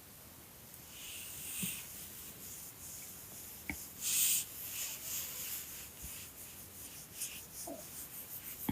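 Sleeping dog breathing noisily through its nose: irregular short breaths and snuffles, the loudest about four seconds in, with a few faint clicks.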